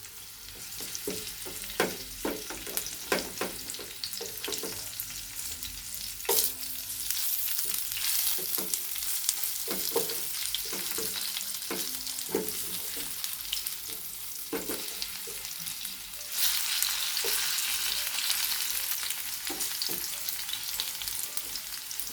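Battered banana flower fritters sizzling in hot oil, with frequent sharp knocks and scrapes of a utensil in the pan as they are turned. The sizzle grows louder about sixteen seconds in.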